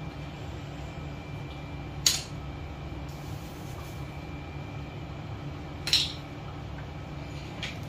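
Two brief sharp sounds about four seconds apart, from a shock pump being handled on the unicycle's air-shock valve while the pumps are swapped. They sit over a steady low hum.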